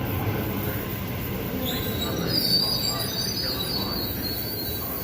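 Sydney Trains B-set double-deck electric train rumbling along the platform. About two seconds in, its wheels start a high squeal that rises in pitch and then holds.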